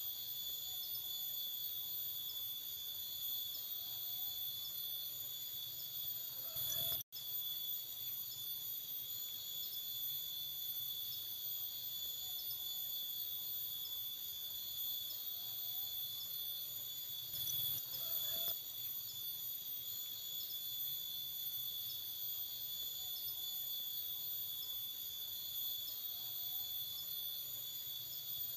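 Night insect chorus: crickets trilling steadily at several high pitches, with a faint pulsing in one of them. It cuts out for an instant about seven seconds in.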